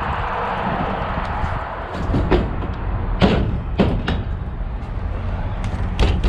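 Several sharp knocks and bangs, in small clusters, over a steady low rumble.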